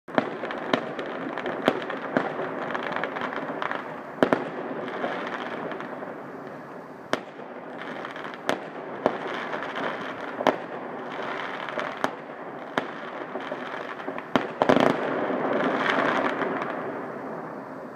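Distant fireworks going off: sharp bangs at irregular intervals over a continuous din of further bursts. The din thickens and grows louder about fifteen seconds in, then fades near the end.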